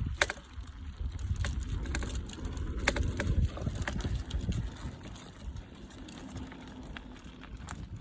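Wind rumbling on the microphone, with scattered sharp clicks and crunches on a rocky dirt trail. The rumble is strongest for the first half and then eases.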